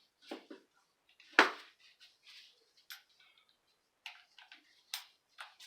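Metal clicks and taps of tools and parts being handled while a T30 Torx bit is fitted to the jack's bolts, with one sharp clack about a second and a half in and a quick run of ticks near the end.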